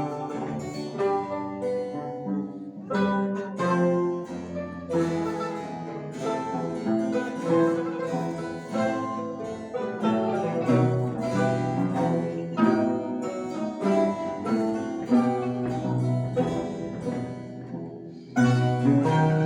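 Mandolin ensemble playing plucked-string music with low bass notes underneath; it quietens briefly and a louder passage comes in about 18 seconds in.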